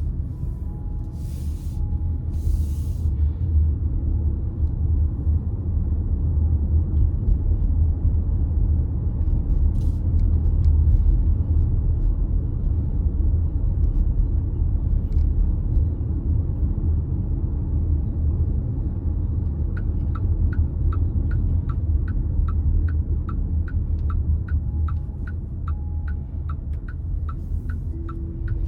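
Steady low road and engine rumble inside a moving car. About two-thirds of the way through, a turn-signal indicator starts ticking, about two clicks a second.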